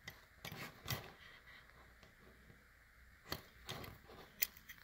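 Faint handling noises from a 1/64-scale diecast toy car being turned over in the fingers: a few soft clicks and rustles, one group about a second in and a cluster in the last second and a half.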